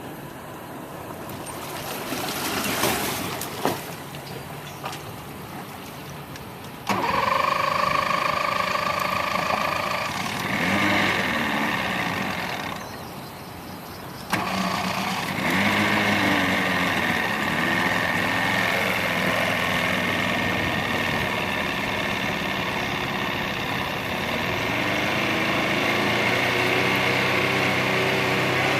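An engine starts abruptly about seven seconds in and runs steadily, drops away briefly, then starts again sharply and keeps running, its pitch rising and falling near the end. Before it starts there is only a noisy rumble with a couple of knocks.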